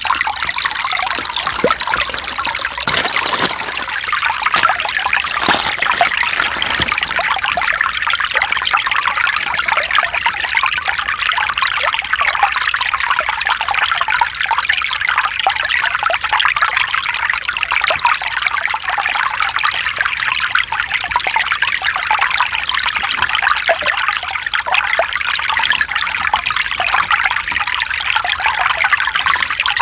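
Mountain stream flowing with a steady, bright trickling and splashing of water.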